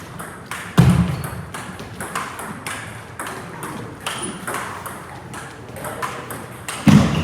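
Table tennis balls clicking off bats and the table in a rapid, irregular series, with two heavier thuds, one about a second in and one near the end.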